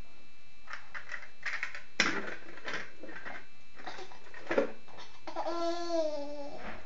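A baby handling and tapping a cardboard toy box: a run of rustles and sharp clicks, two of them louder. About five seconds in, the baby gives a drawn-out babbling sound that falls slightly in pitch.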